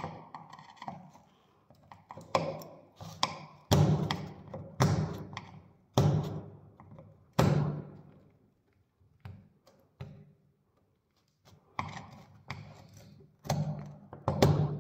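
A screwdriver knocks and taps on a fiberglass bathtub over a repaired crack: a series of irregular sharp thuds, each ringing briefly. This is a tap test of the repair's strength. There is a lull in the middle before the knocking resumes.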